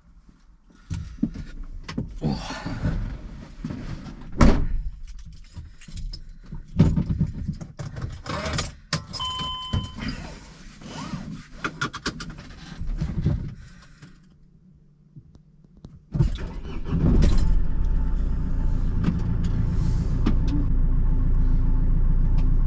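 Keys jangling amid clicks, knocks and rustling, with a short electronic beep about nine seconds in. About sixteen seconds in, a Mercedes Sprinter van's diesel engine starts and keeps running steadily.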